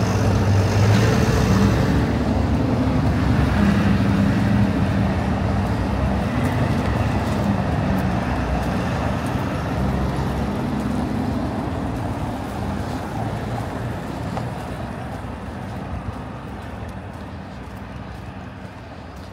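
Street traffic noise, dominated by a motor vehicle engine's low drone that slowly fades away.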